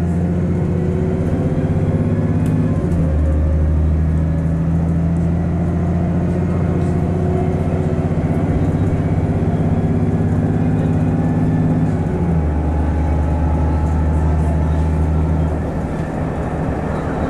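Diesel engine and Voith four-speed automatic gearbox of a VDL DB300 double-decker bus driving hard at speed, heard from inside the cabin, with the bus in limp mode. The engine note changes twice, about three and twelve seconds in, and eases off slightly near the end.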